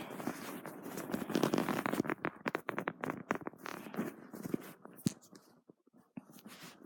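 Rustling and scratching, with a quick run of small clicks and scrapes about two seconds in that dies away to near quiet shortly before the end.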